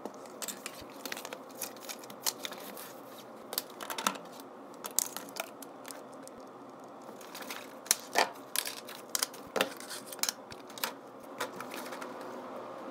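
Small clicks, taps and rustles of desk items being handled and set in place: a plastic desk lamp, a clip-on webcam being clamped on, and a book being moved, with faint room tone between them.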